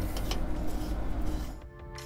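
Outdoor background noise with faint clicks as a hose fitting is screwed onto an RV's city-water inlet, cut off about one and a half seconds in by background music with sustained tones.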